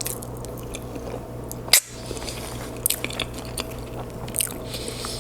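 A person chewing a mouthful of lasagna with wet lip-smacking and mouth clicks scattered throughout, one sharper click just under two seconds in, over a steady low hum.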